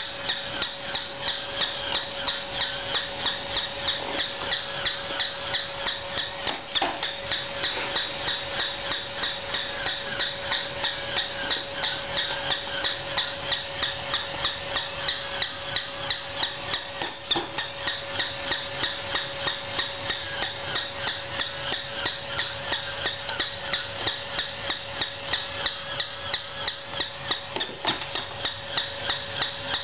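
Battery-powered plush walking toy dog's gear motor running, with a steady whine and a fast, regular mechanical clicking, about three clicks a second.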